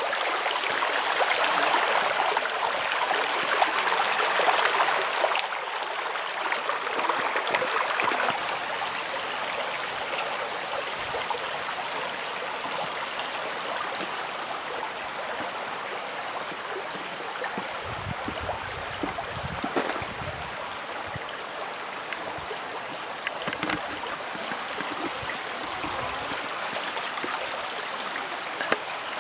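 Shallow creek running over gravel, a steady rushing of water. It is louder for the first several seconds, then steadier and a little softer, with a few faint low bumps in the middle.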